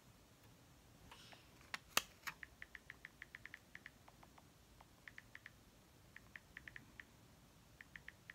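iPhone 11 Pro Max on-screen keyboard clicking as it is typed on: quick runs of faint, short ticks, several a second, in four bursts. About two seconds in come two louder sharp clicks, from the phone being handled.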